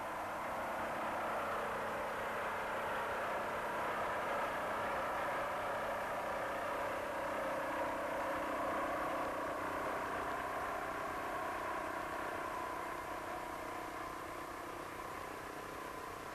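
Hanomag R12 tractor's single-cylinder two-stroke diesel running steadily while it works the field, a continuous mechanical drone.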